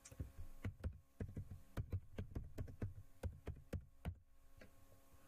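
Typing on a computer keyboard: a quick, uneven run of key clicks that stops about a second before the end, over a faint steady hum.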